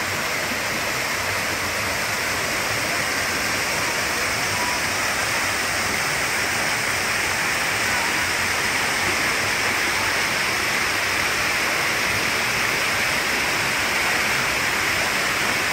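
A small waterfall pouring down a rock face into a pool: a steady rush of falling water.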